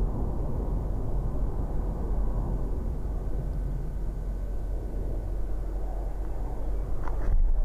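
Four Blue Angels F/A-18 Hornet jets flying in diamond formation, their twin-turbofan engines a steady, low, rushing rumble. A short louder burst comes near the end.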